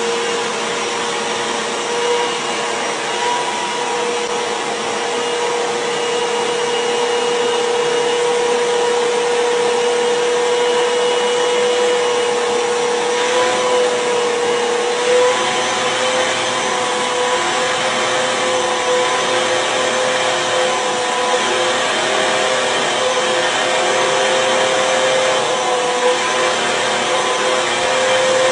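Vacuum cleaner running steadily, drawing hair into its hose to gather a ponytail. Its motor whine holds one pitch and steps slightly higher about halfway through.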